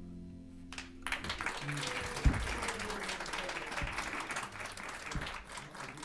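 The last chord of a plucked string band of mandolins, acoustic guitars and lutes fading out, then audience applause breaking out about a second in and continuing.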